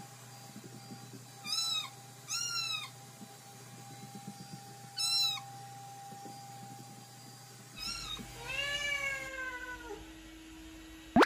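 Domestic cat meowing: three short calls in the first half, then a short call and a longer, drawn-out meow falling in pitch. A brief sharp sound comes at the very end.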